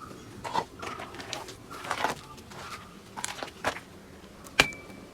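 Car air filter element and its plastic housing being handled: scattered rustles and soft knocks, then one sharp click near the end with a short ring after it.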